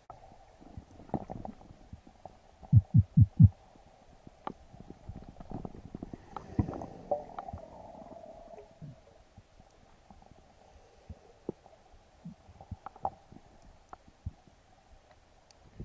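Underwater sound as heard by a camera in its waterproof housing: a muffled low rumble and faint steady hum with scattered clicks and knocks. About three seconds in come four heavy low thumps in quick succession, the loudest thing here.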